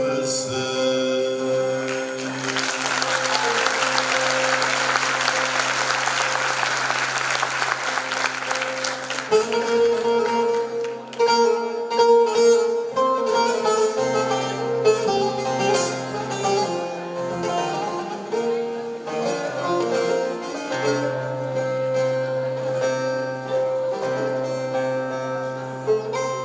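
Audience applause rises about two seconds in and dies away after several seconds while held notes ring under it; then a bağlama (Turkish long-necked lute) plays an instrumental passage, quick plucked melody notes over a steady drone.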